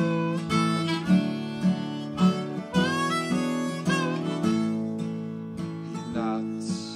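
Music: a harmonica melody over acoustic guitar chords strummed in a steady beat.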